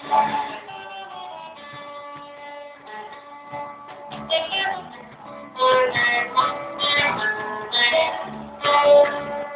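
Guitar music: plucked and strummed notes, softer for the first few seconds and picking up with louder strums about halfway through.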